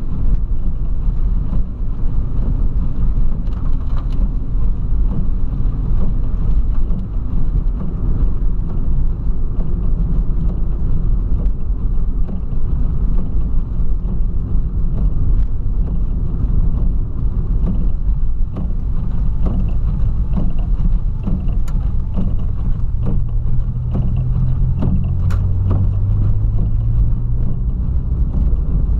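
Volkswagen Polo sedan driving on a rain-soaked road, heard from inside the cabin: a steady low rumble of engine and tyres. An engine note rises out of it for a few seconds near the end.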